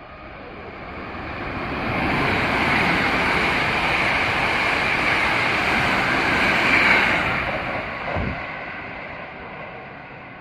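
Hankyu electric train passing through a station without stopping: the rumble and rail noise swell as it nears, stay loud for about five seconds with a steady hiss as the cars go by close, then die away.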